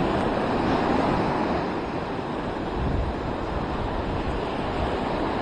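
Surf washing onto the beach: a steady rush of breaking waves, with wind buffeting the microphone.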